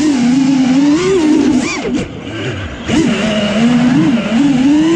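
Four brushless motors of a 4S FPV quadcopter with 4.9-inch props, heard from the onboard camera: a loud buzzing whine whose pitch rises and falls with the throttle. About two seconds in the throttle drops and the sound dips for about a second before it spins back up.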